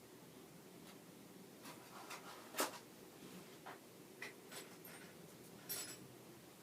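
Faint room tone with a few scattered light clicks and rustles of things being handled, the sharpest click about two and a half seconds in.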